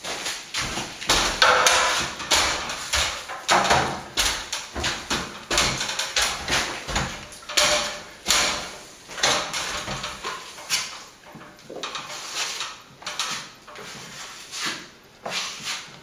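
Plastering trowel scraping and spreading a third coat of plaster along a wall chase, in a quick irregular run of short strokes, with knocks from tools and the stepladder mixed in, louder in the first half.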